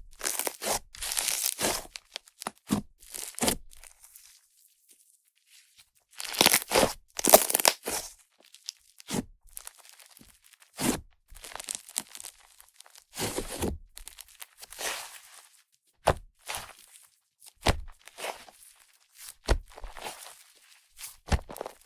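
Fluffy clay-butter slime made with Yoda clay being squished and stretched by hand, giving crackly, sizzling pops as trapped air escapes. It comes in irregular bursts, with a pause of about two seconds early on.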